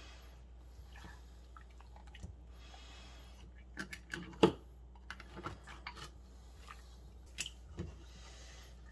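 Kitchen knife cutting into a whole olive flounder on a plastic cutting board: scattered wet slicing and squishing sounds with short knocks, the loudest about four and a half seconds in, as the head is cut off.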